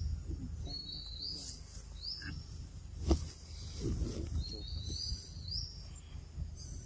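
Forest ambience with short, high-pitched rising chirps repeating every second or so, and one sharp click about three seconds in.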